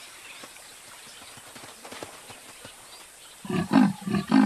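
Male leopard calling with a rhythmic series of rasping roars, about three a second, starting about three and a half seconds in after a stretch of faint background; the roars signal he is ready to mate again.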